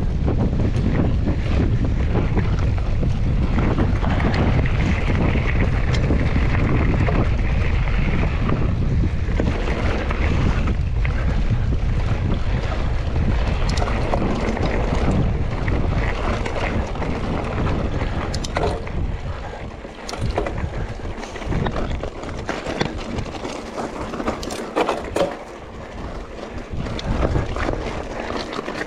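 Wind buffeting the microphone of a mountain bike ride, with the bike rattling over rough trail. The wind rumble eases about two-thirds of the way through, leaving scattered clicks and knocks.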